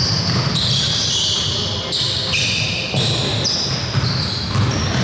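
Basketball game in play in a gym: a basketball bouncing on the court amid a steady hall din.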